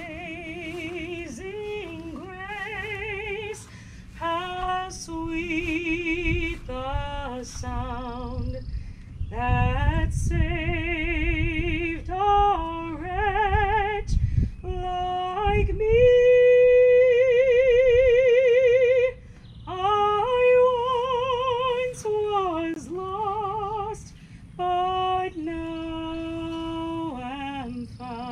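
A woman singing solo and unaccompanied, with strong vibrato, in phrases. About halfway through she holds one long, loud note. A low rumble, likely wind on the microphone, swells under the voice at times.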